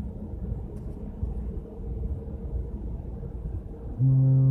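Low steady rumble, then about four seconds in the Carnival Pride's ship horn sounds a loud, deep, steady blast that is still going at the end: a fog signal in dense fog.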